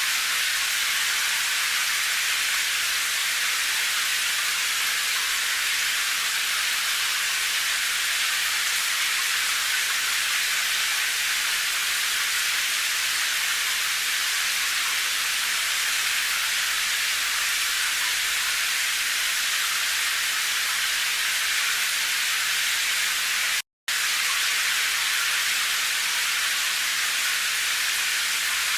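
Steady, dense hiss of heavy rain, strongest in the upper range. It cuts out to silence for a split second a little over 23 seconds in, then resumes unchanged.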